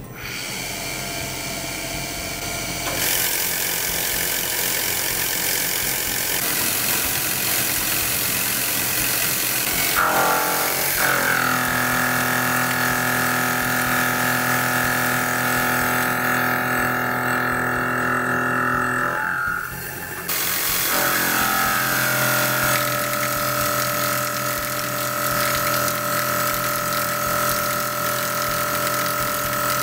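Tormach PCNC 770 CNC mill's spindle driving a fly cutter across round bar stock, taking 0.050-inch-deep passes to mill the first flat. The machining noise turns into a steady ringing tone of several pitches about ten seconds in, stops for a moment near twenty seconds, then starts again for the next pass.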